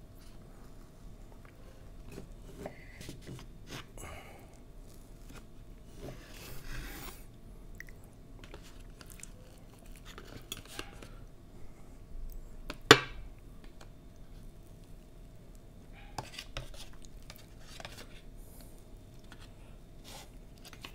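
Metal cutlery scraping and clicking against a cake tray as a brazo de mercedes roll cake is cut and scooped: scattered light clicks and scrapes, with one sharp loud clink about thirteen seconds in.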